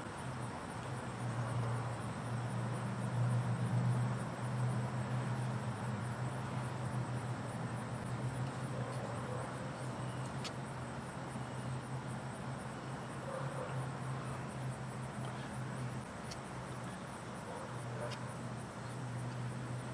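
A steady low hum that dips briefly and comes back, with faint, evenly repeating high chirping of insects and a few light clicks.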